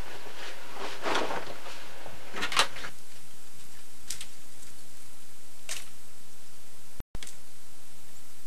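Clothing being handled: fabric rustling in a few short brushes over steady background hiss. The sound cuts out for a moment about seven seconds in.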